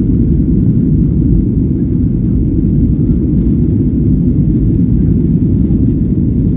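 Jet airliner's engines at takeoff power with runway rumble, heard inside the passenger cabin during the takeoff roll: a loud, steady low noise.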